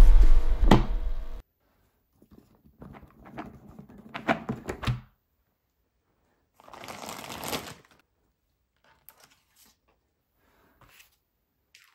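Music cuts off suddenly about a second and a half in. Then a cardboard jigsaw puzzle box and its plastic bag of pieces are handled: a run of light clicks and taps, a rustle of plastic, and a few faint ticks near the end.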